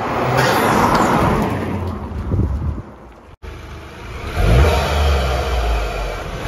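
Toyota GR Yaris turbocharged 1.6-litre three-cylinder engine with an Eventuri carbon intake: first the car drives past, loudest about a second in and then fading away. After a sudden cut, the parked car is revved, its pitch rising sharply and falling back.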